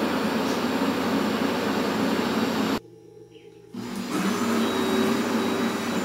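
Countertop blender motor running, blending carrot cake batter. It stops a little under three seconds in and starts again about a second later.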